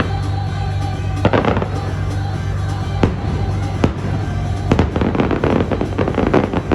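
Fireworks bursting over the show's music soundtrack: single loud bangs a second or so apart, then a dense run of rapid crackling near the end.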